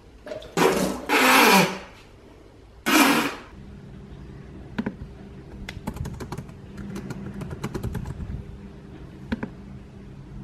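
Two loud, rough vocal outbursts in the first few seconds, then a computer keyboard typing in scattered clicks for several seconds over a steady low hum.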